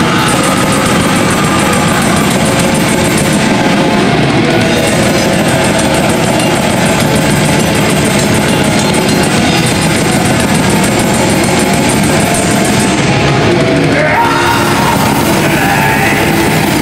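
Black metal band playing live at full volume: distorted electric guitars, bass and drum kit in a dense, unbroken wall of sound. The music shifts to a new section about fourteen seconds in.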